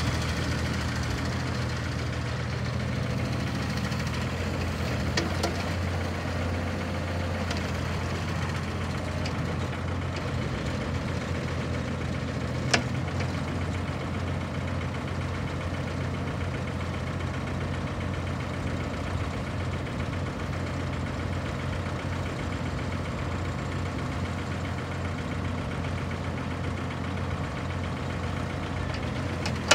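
2001 CAT 302.5 mini excavator's diesel engine running steadily while the boom and arm are worked hydraulically, with a single sharp click about halfway through.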